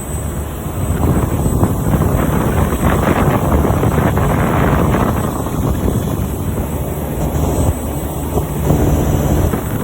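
LG Multi V 5 heat pump outdoor unit running: steady fan noise over a low hum.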